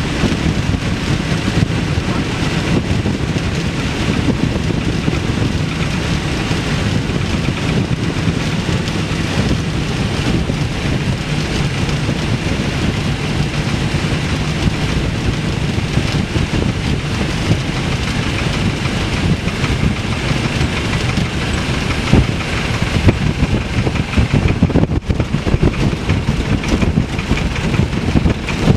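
Piper J-3 Cub's engine and propeller running steadily, mixed with heavy wind rush in the cockpit as it descends over a grass strip. Later the sound turns rougher, with uneven thumps as the wheels touch down and roll over the grass.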